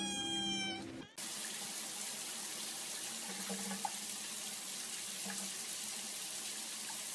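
Water running steadily from a tap, an even hiss that starts about a second in and keeps on without change. A brief steady tone sounds before it.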